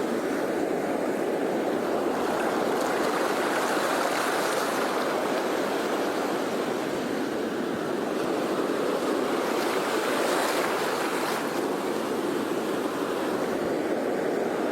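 Sea waves washing on a shore: a steady surf noise that swells slightly about two-thirds of the way through.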